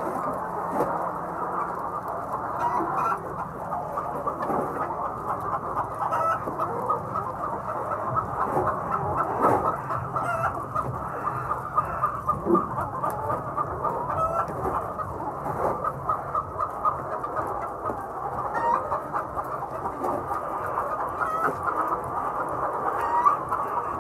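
A flock of egg-laying hens clucking, with many birds calling over each other in a dense, continuous chatter.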